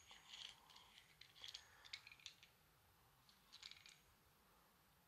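Faint metallic clicks and rattles from a microphone boom arm's table clamp being handled, its loose sliding T-bar handle clinking on the threaded screw. They come in scattered clusters over the first two seconds or so and once more a little later.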